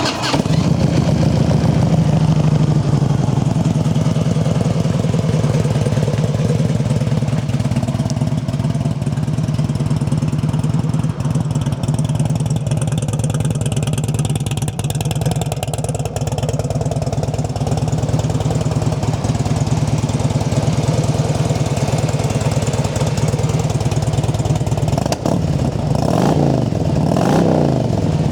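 A 2006 Harley-Davidson Road King Custom's fuel-injected 88-inch Twin Cam V-twin idling steadily through upgraded slip-on mufflers, with two quick blips of the throttle near the end. It runs quiet and tight: a healthy, good-running motor.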